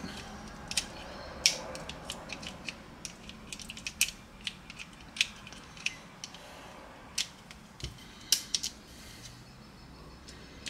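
Hi-Capa-style airsoft pistol being taken apart by hand: scattered sharp clicks and small knocks of its parts, some in quick clusters, with one duller low knock.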